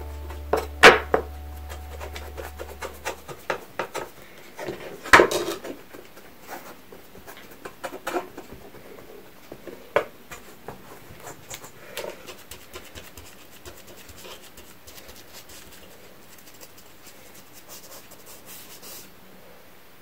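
Bamboo kitchen utensils scrubbed with a scouring sponge: scratchy rubbing with irregular light knocks of wood on a wooden chopping board. The loudest knocks come about one and five seconds in, and it grows sparser toward the end.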